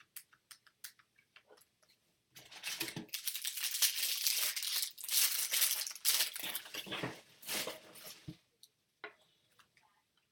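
A foil trading-card pack being torn open and its wrapper crinkled, a run of crackling lasting several seconds, with small clicks of the cards being handled before and after.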